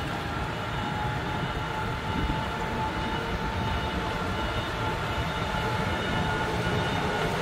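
A 10-ton forklift's engine running steadily as it drives carrying a loaded shipping container, a continuous low rumble with a faint steady whine above it.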